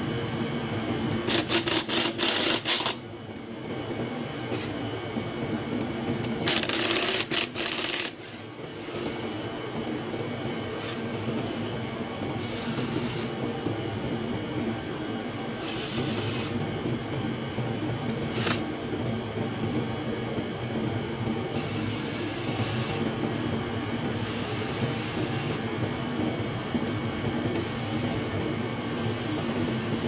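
A ratchet on a long extension loosening the cam-cap bolts on a KX250F's cylinder head, in bursts of rapid clicking. The louder bursts come about a second in and again about six and a half seconds in, over a steady background drone.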